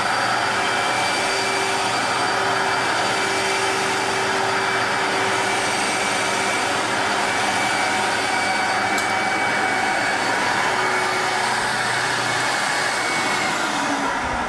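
Portable carpet extractor's vacuum motor running steadily while a Rotovac rotary extraction wand spins over the carpet with the water off, so only suction is extracting. Near the end a low hum stops and a motor winds down, its pitch falling.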